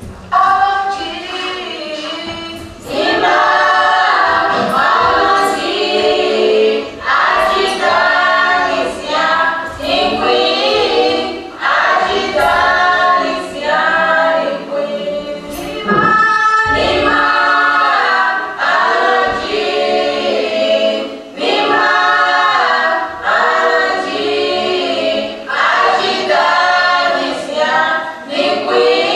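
Choir singing: many voices in phrases with short breaks between them. The singing comes in suddenly right at the start.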